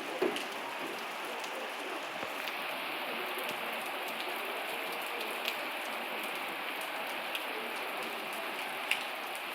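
Steady rain falling on a surface, with a few louder single drops striking close by, the loudest near the end.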